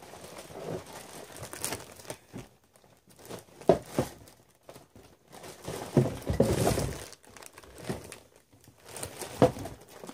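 Clear plastic bag crinkling and crackling in irregular bursts as it is handled and pulled at to get it open, louder around the middle and near the end.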